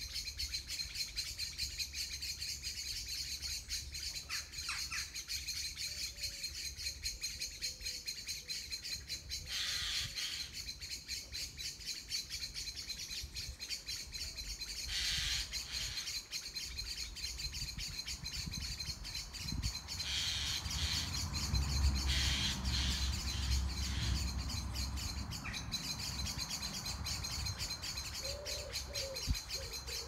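Garden birds singing and chirping together: a dense chorus of rapid high notes. A low rumble swells and fades about two-thirds of the way through, and a low cooing call repeats near the end.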